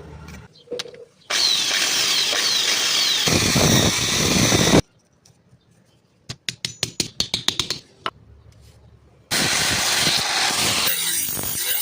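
Workshop power tool noise in short cut-together clips on the old saw blade steel: a steady running tool, then a quick run of sharp clicks about six seconds in, then steady tool noise again near the end.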